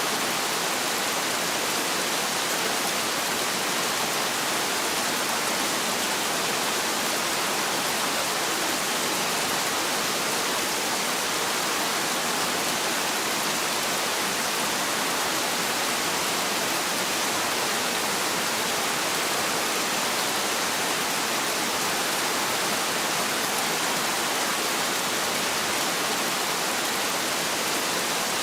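Heavy rain falling steadily, an even hiss with no breaks, no single drops standing out and no thunder.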